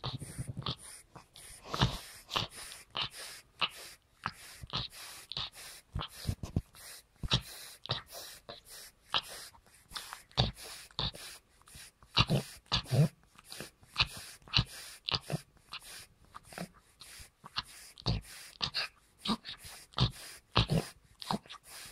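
Sleeping bulldog snoring in a fast, irregular run of short noisy bursts, about two or three a second. Such noisy sleep breathing is typical of a bulldog's short, flat-faced airway.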